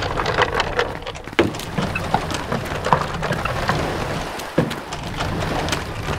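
Wheeled suitcases rolling and clattering over paving, with scattered clicks and knocks over a steady rumble.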